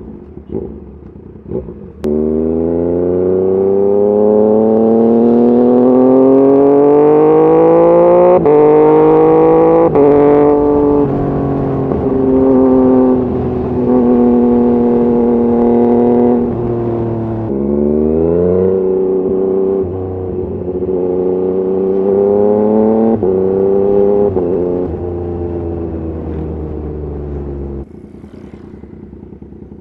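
Yamaha MT-09's inline three-cylinder engine accelerating hard, its pitch climbing with brief dips at the gear changes, then running on at steadier revs with more shifts. Near the end it drops back to a low, quieter idle.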